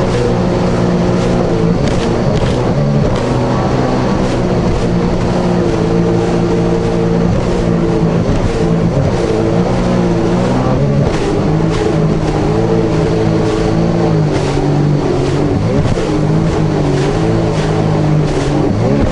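Jet ski engine running under way at speed, its pitch wavering up and down as the throttle changes, over a steady rushing noise.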